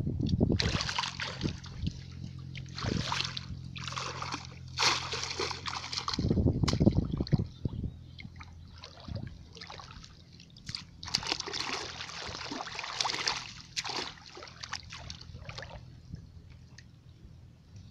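Shallow muddy water splashing and sloshing in irregular bursts as hands grope through it and around a bamboo plunge basket fish trap, with a few heavier splashes.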